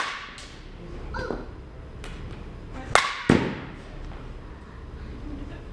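A DeMarini CL22 slowpitch softball bat hitting a pitched softball with one sharp crack right at the start, followed about three seconds in by two more sharp knocks a third of a second apart.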